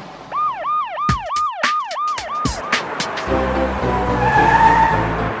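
Cartoon police siren yelping: a quick rising-and-falling tone repeated about four times a second, with a few sharp clicks, for about two and a half seconds. Music starts about three seconds in.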